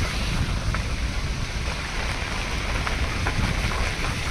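Steady rushing noise of a moving car heard through an open window: wind buffeting the microphone over a low road rumble.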